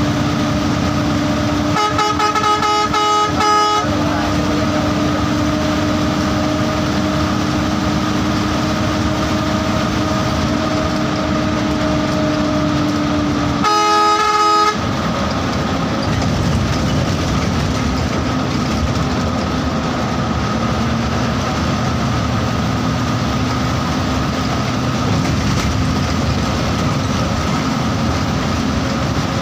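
Bus engine running steadily on the road, its note dropping a little about fourteen seconds in. A horn sounds twice: a pulsing blast about two seconds in lasting nearly two seconds, and a shorter steady blast about fourteen seconds in.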